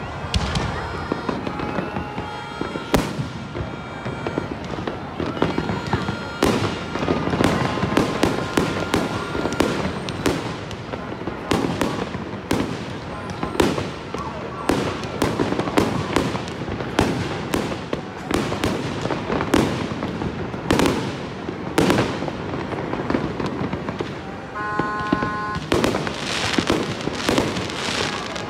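Aerial fireworks shells bursting in quick succession: a dense, unbroken run of bangs, several a second, with crackling between them.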